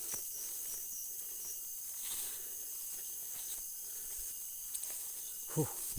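Night-time chorus of insects such as crickets, a steady high-pitched hiss and trill.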